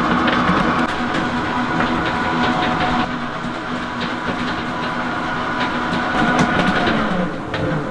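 A large commercial stand mixer runs steadily as it kneads a stiff bread dough, giving a held motor whine with some mechanical clatter. Near the end the motor's pitch falls as it winds down.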